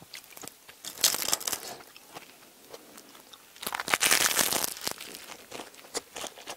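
Crisp baguette sandwich crust crunching as it is bitten into, in two loud spells, about a second in and again around four seconds in, with softer crackly chewing between and after.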